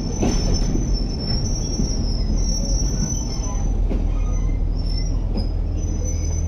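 Passenger train coaches rolling slowly alongside the platform as the train pulls in, with a high metallic squeal from under the coaches that wavers and comes and goes over a steady low rumble.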